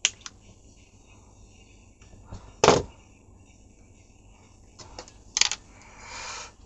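Handling sounds of a small radio and tools on a workbench: a sharp click at the start, a louder knock a little under three seconds in, a few more clicks about five seconds in, then a short hiss near the end.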